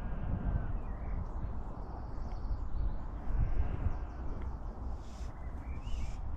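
Riverside outdoor background: a steady low rumble with a few faint bird chirps.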